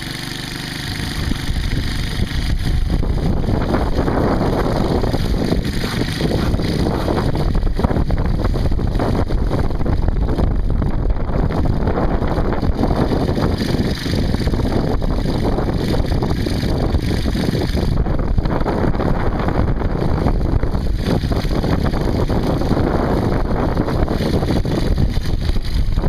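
Blizzard wind buffeting the microphone in a steady, loud, low rumble of noise.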